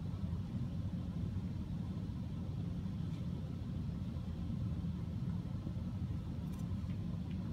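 Steady low rumble of room noise in a large gymnasium, with a faint tick or two and no board-breaking impacts.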